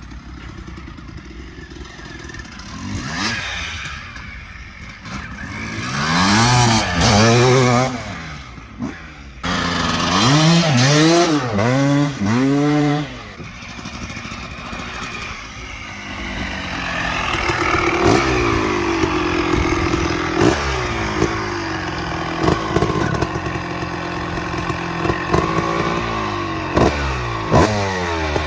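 Kawasaki KX250's single-cylinder two-stroke engine warming up: it idles, then is revved in repeated throttle blips with the pitch sweeping up and falling back, then holds a steadier higher speed with small blips near the end.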